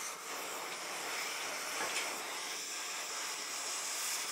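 Cutting torch flame hissing steadily as it cuts an old bearing off a windmill compressor's crankshaft.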